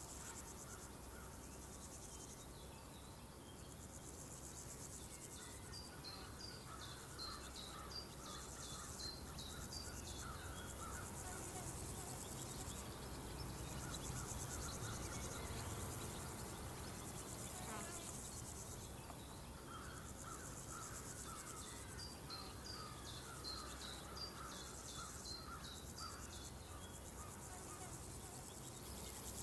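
Crickets and other insects chirping in a steady chorus; a high insect drone drops away and returns every few seconds, with runs of quick chirps now and then, over a low rumble of rural ambience.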